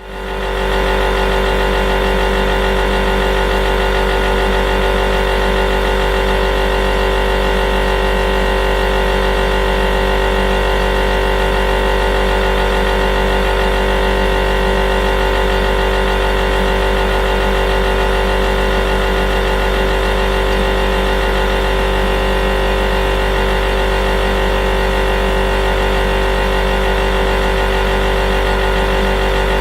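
Refrigerator compressor running with a steady hum made of several fixed tones over a deep drone. It fades in at the start.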